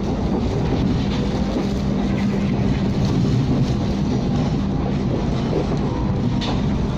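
Passenger train running, heard from inside the coach: a steady rumble of the running gear on the track with a steady low hum underneath.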